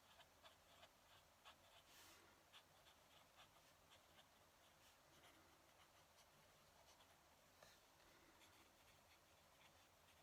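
Fountain pen nib scratching faintly across paper in short strokes, busiest in the first half.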